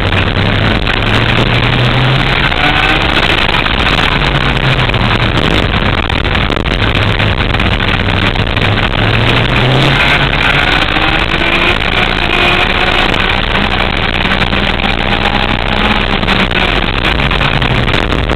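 Go-kart engine heard from onboard at speed, its pitch repeatedly climbing under acceleration and dropping back for the corners, under a heavy rushing noise.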